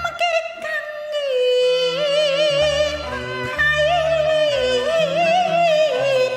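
Cantonese opera music: a high melody of long, held notes with wide vibrato over a lower accompaniment of stepping notes.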